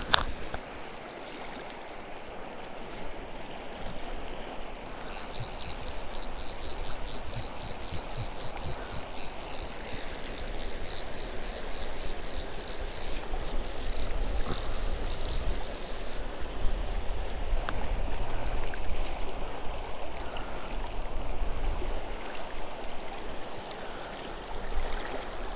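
River water running steadily over rocks, with a low rumble underneath. From about five seconds in until about sixteen seconds a rapid, high-pitched ticking runs over the water sound.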